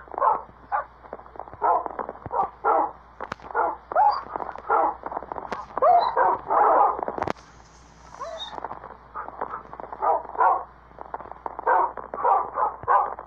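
A dog barking over and over, about two barks a second, with a short pause around seven seconds in.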